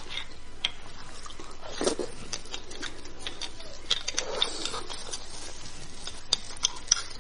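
Close-miked mouth sounds of eating beef bone marrow: irregular wet smacking clicks of chewing, with a couple of longer, noisier mouth sounds about two and four seconds in.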